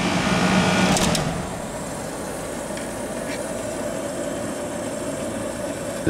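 Carrier International Series 27,500 BTU wall air conditioner running, then a click of the control knob about a second in as it is switched from cooling: the hum of its Toshiba rotary compressor dies away and the unit gets quieter, with the blower fan still running steadily.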